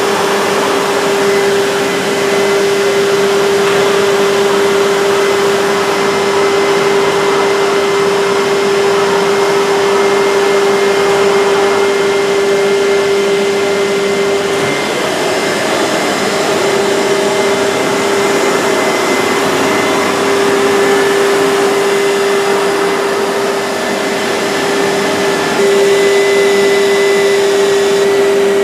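Woodworking machinery running steadily: a loud, even noise with a constant hum running through it. The hum drops out for a moment about halfway through and comes back a little louder near the end.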